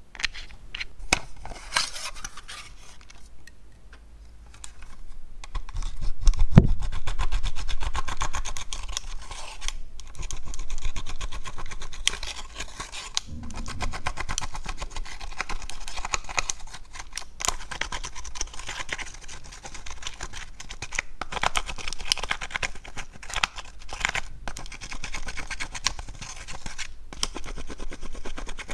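A small metal spatula scraping and scratching pressed eyeshadow out of the wells of a plastic toy makeup palette: dry, gritty scratching with small plastic clicks and taps, and a couple of duller knocks of handling in the first half.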